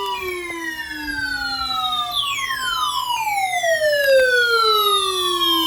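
Several siren-like tones gliding steadily downward in pitch and overlapping, with new falling tones coming in about two and three seconds in.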